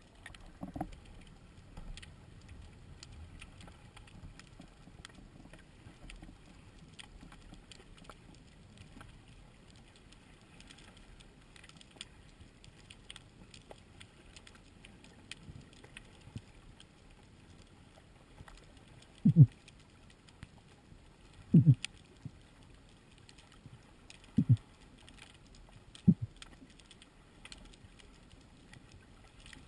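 Underwater ambience picked up by a camera on a speargun: a low hiss with scattered faint crackling clicks. In the second half come four short, dull, low thumps, two close together and then two more.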